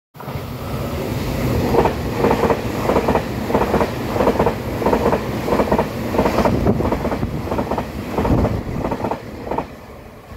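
Taroko Express tilting electric train passing at speed, its wheels clacking over the rail joints in a steady rhythm of about two clacks a second over a continuous rumble. The clacking stops and the sound drops away near the end.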